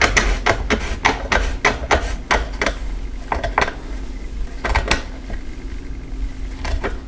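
Sharp metallic clicks and taps from a hand tool working a bolt in an aluminium roof-rack rail, several a second at first and then only a few, spaced out.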